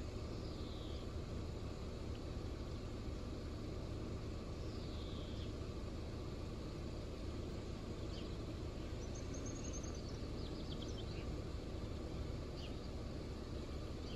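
Outdoor ambience: a steady low background rumble with birds calling over it. There are two short falling whistles, one near the start and one about five seconds in, then a high trill and a few brief chirps in the second half.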